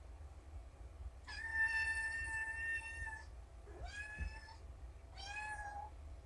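Kittens meowing three times: a long meow held at a steady pitch for about two seconds, then two shorter meows, the first of them rising in pitch at its start.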